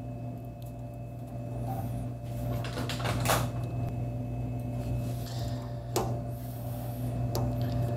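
Steady low hum with light handling noises: a couple of soft knocks and rustles as a plastic adhesive cable hook is pressed and held against the vending machine's panel.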